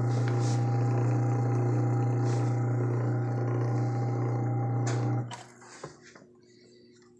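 Electric motor of a Belsaw 550-1 chainsaw sharpener running unloaded, with no drive belt or grinding stone fitted: a loud steady hum. About five seconds in it stops after a couple of clicks, leaving a faint tone that fades as the motor coasts down.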